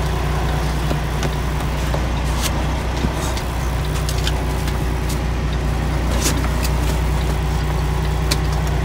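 Semi-truck diesel engine idling steadily, with a few light clicks and taps over it.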